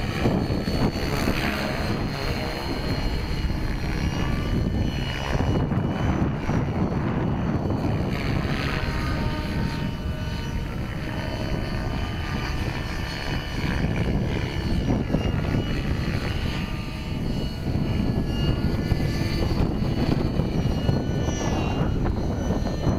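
Radio-controlled helicopter flying at a distance, the pitch of its rotor and motor rising and falling as it manoeuvres, over a steady low rumble of wind on the microphone.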